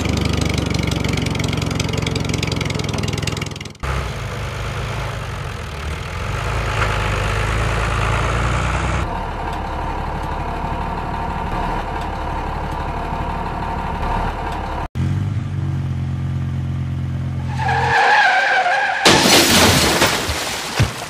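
Vehicle engine sound running steadily, its tone switching abruptly several times. Near the end comes a loud, harsh rushing noise.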